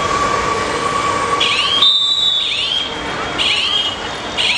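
High whistles blown several times, each gliding up into a short held note, over a steady background of crowd noise.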